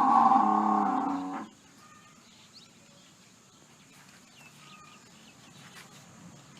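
Buffalo giving one long, low moo-like call that ends about a second and a half in, followed by faint chirping in the background.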